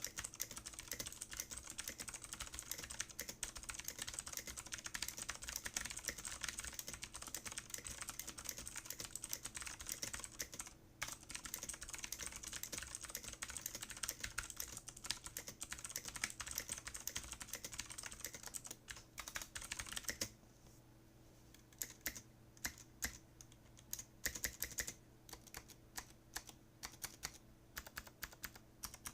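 Mechanical keyboard with clicky Kailh Blue switches and POM keycaps being typed on fast, a dense run of clicking keystrokes with a brief pause around eleven seconds in. About two-thirds of the way through the typing thins out to scattered single keystrokes and short bursts.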